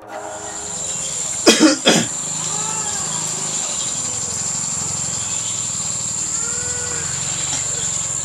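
Steady high-pitched insect chorus with a low hum beneath it, broken about a second and a half in by a loud, short two-part call.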